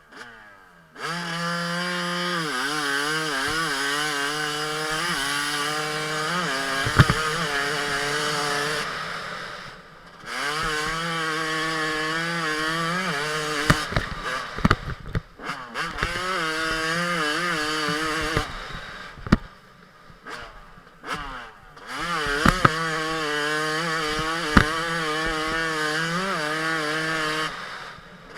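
Yamaha 250 two-stroke motorcycle engine running at high revs in three long stretches, its pitch wavering and stepping up and down, with short lulls between them that hold a few sharp clicks.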